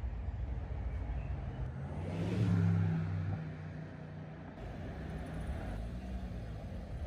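Street traffic: a car passes close by, its engine hum and tyre noise swelling and fading about two to three seconds in, over a steady low traffic rumble.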